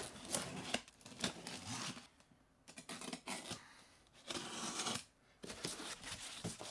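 Packing tape on a cardboard box being slit with a knife and torn, in several separate rasping strokes, followed by the cardboard flaps and foam packing being pulled open near the end.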